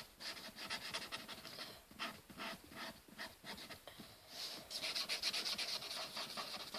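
Pen tip rubbing and scratching on paper in quick back-and-forth strokes while drawing and colouring in thick frame lines, the strokes coming faster and louder about two thirds of the way through.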